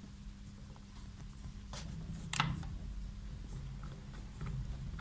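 Light metal clicks as a spring-loaded three-jaw timing-pinion puller is worked onto the crankshaft timing pinion of a Triumph Trident T160 engine: two sharp clicks about two seconds in, the second the loudest, then a few faint ticks, over a low steady hum.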